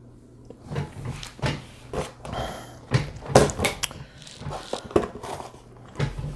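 Irregular short knocks, clicks and rustles of objects being handled and a person shifting at a table.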